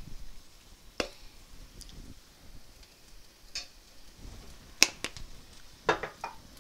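A handful of sharp metallic clicks and taps of a steel spoon and spice jar against a stainless steel pan as turmeric powder is shaken in, the loudest nearly five seconds in.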